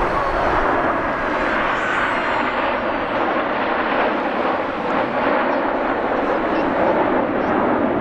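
BAE Hawk T1 jets of the Red Arrows flying past, a steady rushing jet engine noise from their Adour turbofans.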